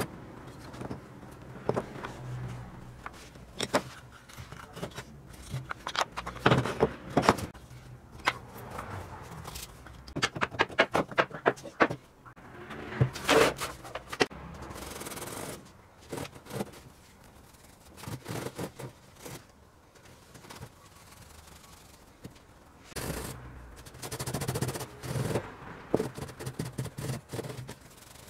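Old metal calibration weights and their wooden case being handled on a wooden tabletop: scattered knocks and clicks, a quick rattling run of clicks about ten seconds in, and short stretches of rubbing.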